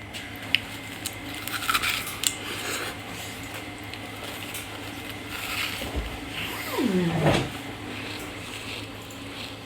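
Chewing and crunching frozen jelly close to the microphone, with scattered sharp clicks and crackles. About seven seconds in, a short vocal sound slides down in pitch.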